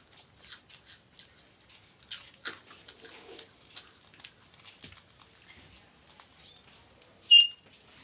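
A ring-necked parakeet biting and crunching a piece of food held in its foot: a run of small, irregular clicks and crunches. Near the end comes one brief, sharp squawk, the loudest sound.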